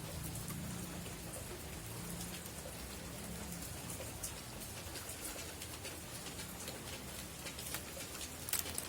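Steady rain falling, with the patter of individual drops hitting a surface and a few louder drips near the end.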